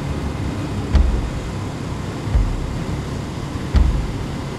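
Motorcycle riding at highway speed: steady engine and wind noise, with a low thump about every second and a half.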